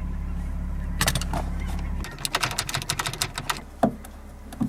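Sharp clicking and snapping of a car's exterior door handle being worked and broken loose from the door, most rapidly in the middle, followed by two single knocks. A steady low hum runs underneath and stops about two seconds in.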